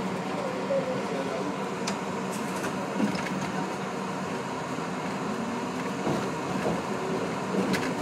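R62A subway car moving slowly through the tunnel: a steady low hum and hiss, with a few faint clicks.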